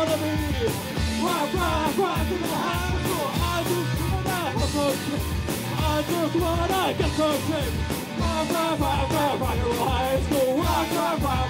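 Live punk rock band playing a song, a singer over a steady driving drum beat.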